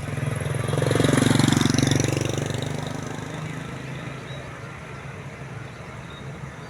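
A vehicle passes close by: its engine and tyre noise swells about a second in and fades away over the next two seconds, over a steady low engine hum.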